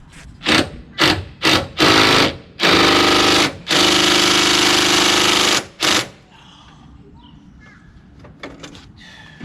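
Handheld power driver run in short bursts, then in longer runs of a second or two, trying to back out rusted, stripped screws from a golf cart's floor rail.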